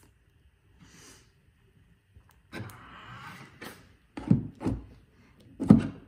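Tesla mobile connector plug handled and pushed into the car's charge port: a short rustle about two and a half seconds in, then three low thumps, the loudest near the end, as the plug seats and locks.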